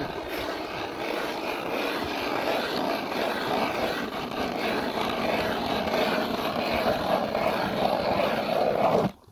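Ice auger boring into lake ice: a steady, continuous grinding as the spiral blade cuts and throws up ice chips, stopping suddenly about nine seconds in.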